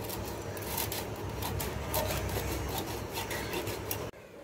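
Hilsa fish being worked against a bonti blade: a quick run of rasping, scraping strokes of scales and flesh on the metal edge, which stops abruptly about four seconds in.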